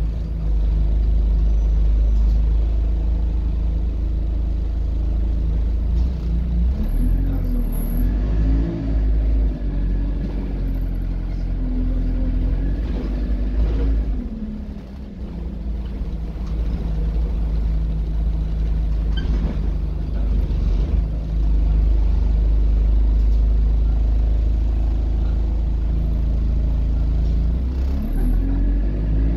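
A diesel bus's engine and Allison automatic gearbox heard from inside the cabin, a steady low rumble throughout. A whine rises and falls between about seven and fifteen seconds in as the bus speeds up and shifts, then the bus runs steadily, and another rising whine comes near the end.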